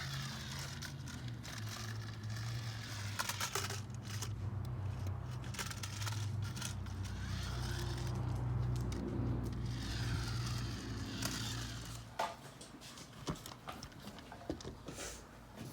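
Toy RC police truck's small electric motor running as it drives, with a faint whine rising and falling and crackling and scraping of the tyres over the ground; it stops about twelve seconds in, leaving a few scattered clicks.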